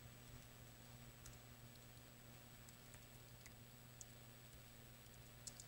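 Faint computer keyboard typing: a few scattered keystrokes over a low steady hum.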